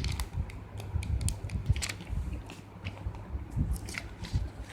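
Handling noise from a smartphone and its packaging being handled by hand: scattered light clicks and rustles over soft low bumps.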